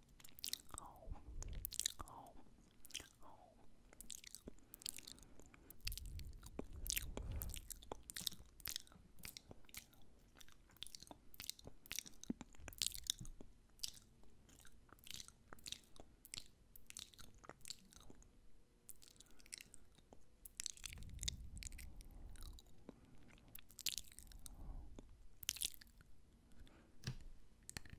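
Close wet mouth sounds made right against the microphone for ear-eating ASMR: dozens of sharp lip smacks, tongue clicks and mock nibbling, some in quick runs, with a low rumble now and then.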